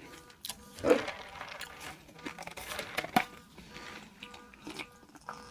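Close-miked eating of fast food: crunching bites and chewing, with small clicks. The loudest crunch comes about a second in. A faint pulsing electronic tone sounds in the background.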